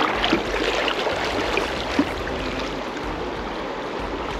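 Kenai River current rushing and rippling steadily, with a few small splashes near the start and a short knock about two seconds in.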